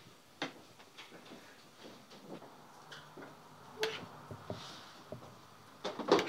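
Metal spoon clinking and scraping against a porcelain dish while yogurt is scooped out and spooned over a plate: scattered light clicks, with a louder cluster of clinks near the end.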